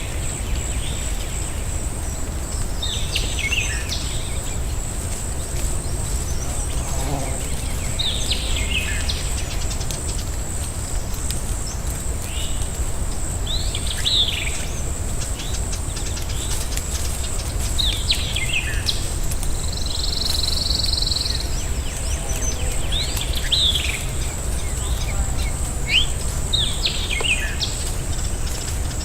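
Forest ambience: a bird gives a short, sharply descending call every few seconds, over a steady high-pitched whine and a constant low rumble.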